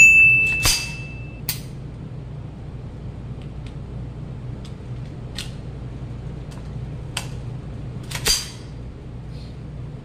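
An electronic notification chime rings out at the start, followed by a couple of clicks, from a subscribe-button overlay. Then come light metallic handling clicks of a 9mm pistol-caliber carbine, with the loudest click about eight seconds in as a magazine is seated in its magwell, all over a steady low ventilation hum.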